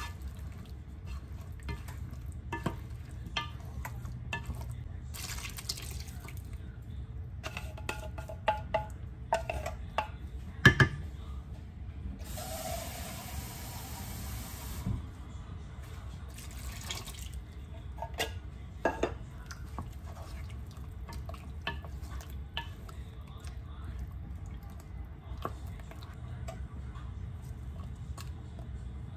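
Cooking sounds at a curry pot: scattered knocks and clicks of a wooden spoon and utensils against the pot, and about halfway through a few seconds of liquid pouring in, over a steady low hum.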